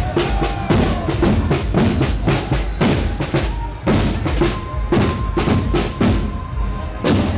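Marching drums in a carnival parade, with bass drum and snare drums playing a steady, fast beat. A single held higher note sounds over the drumming from about the middle until near the end.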